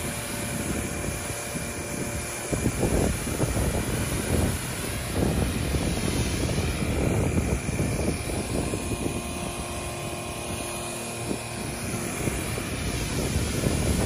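Electric ride-on vacuum sweeper running: a steady mechanical whir with a thin high whine over it, swelling louder in irregular surges.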